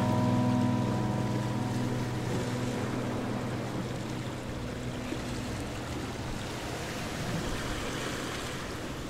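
The last chord of the background music rings out and fades over the first few seconds. It leaves a steady rushing noise, like surf or wind.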